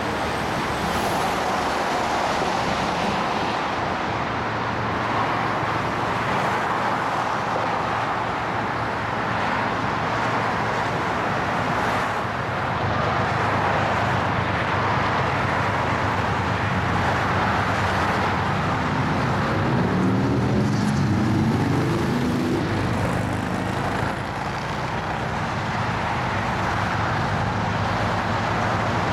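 Steady freeway traffic noise. About halfway through, the low hum of approaching BNSF diesel locomotives builds beneath it.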